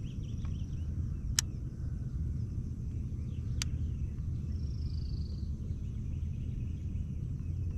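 A steady low rumble with two sharp clicks about two seconds apart, and faint bird chirps, one short higher call near the middle.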